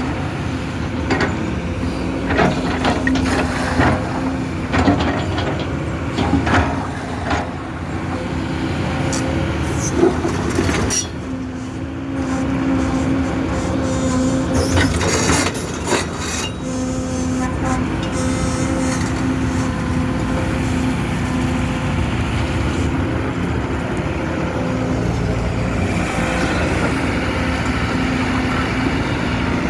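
Kobelco 220 hydraulic excavator's diesel engine running steadily, with repeated knocks, clanks and scrapes of the working machine through roughly the first half. After that the engine runs on more evenly.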